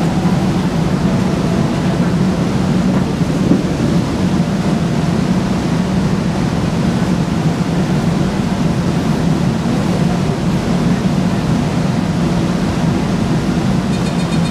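Steady low hum and rush of air from an MRT train standing at an underground platform with its doors open: the train's air conditioning and the station ventilation running, with no motion noise.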